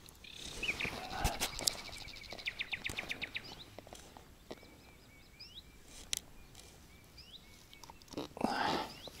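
Small birds calling: a rapid trill of evenly spaced notes a couple of seconds in, then several short rising chirps. Rustling and handling noises near the start and near the end as a bream is unhooked in a landing net.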